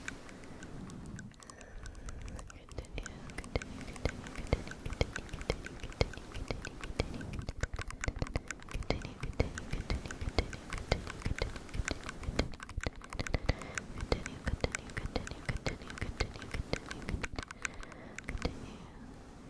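A brush stroked and scratched directly on the microphone: dense, crackly scratching made of many sharp ticks, with a couple of brief lulls.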